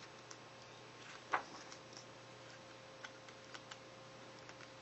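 Faint handling of a glossy artbook's pages: small clicks and ticks of fingers on paper, with one louder rustle of a page being turned about a second and a half in.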